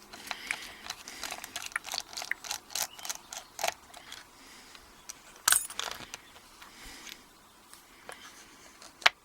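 Small metal clicks and light rattles of an Abus 72/40 padlock being handled and opened up for disassembly, with scattered taps throughout and a louder clack about five and a half seconds in and another just before the end.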